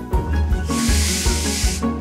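Background music with a steady beat and bass. A hiss starts abruptly near the middle and cuts off about a second later.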